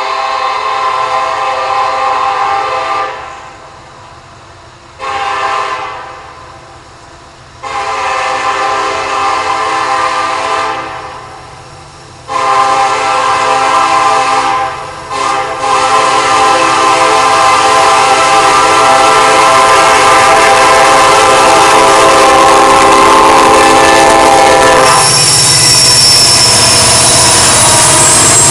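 Norfolk Southern SD70M-2 locomotive's Nathan K5LLA five-chime air horn sounding a series of blasts: a long one, a short one, another long one, then a very long blast held over ten seconds with a brief dip near its start. Near the end the horn stops and the loud noise of the passing train carries on.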